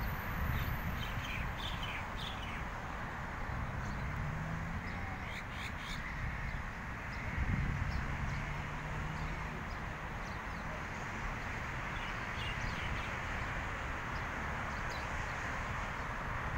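Common mynas calling, with short harsh calls coming several times over a steady background hiss.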